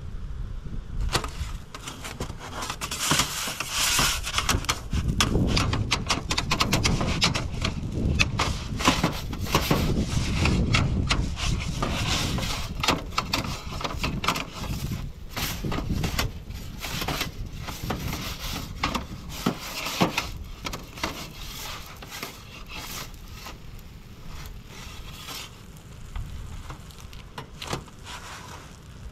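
Fire crackling inside an Expert Grill 15-inch portable pizza oven: dense sharp pops and snaps over a low rumble, thinning out after about twenty seconds.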